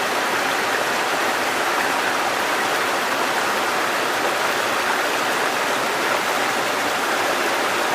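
River water rushing steadily over shallow rapids, a constant even roar of white water.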